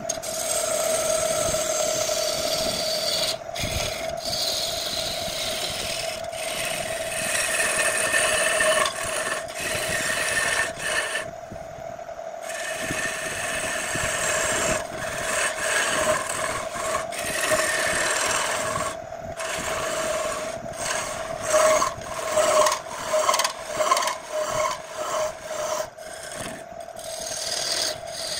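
Wood lathe spinning a wooden blank with a steady hum while a hand-held turning tool cuts into the wood with a rough, rasping scrape. The cutting breaks off briefly a few times, and near the end it comes in short repeated strokes, about two a second.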